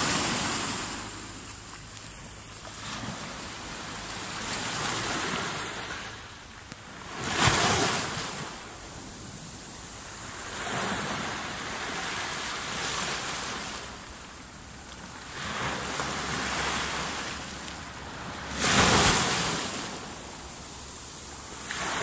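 Small Mediterranean waves breaking and washing up a shore of coarse sand and small pebbles close by, in repeated swells that rise and fall every few seconds. The two loudest crashes come about seven and nineteen seconds in.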